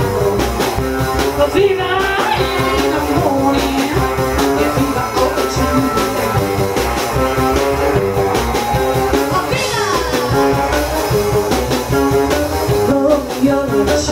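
Live band playing an instrumental break of a bluesy rock-and-roll song over a steady beat, with a lead line whose pitch slides a couple of times.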